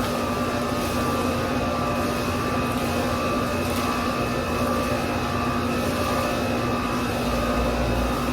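Steady machine hum: a constant drone with a faint, regular pulsing whine above it.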